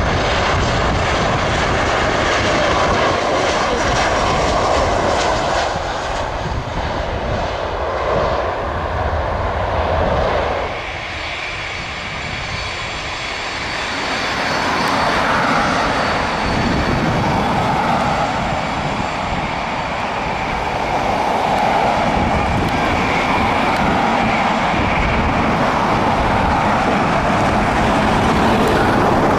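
Airliner engines running loud as a plane moves along the runway, easing off for a few seconds about eleven seconds in and then building again.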